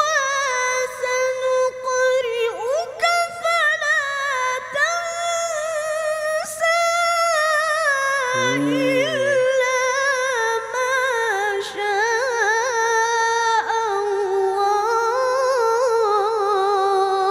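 Quran recitation (tilawah) by a child qari in a high, clear voice, holding long melismatic notes with a fast vibrato and sliding through ornamented runs.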